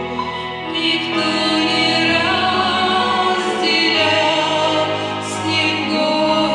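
Worship song sung with instrumental accompaniment: voices holding long notes over a sustained bass line that changes chord every second or two.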